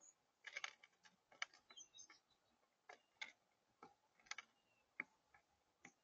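Mourning dove pecking seed on a feeder tray: about a dozen sharp, irregular clicks and taps of its beak, some in quick clusters.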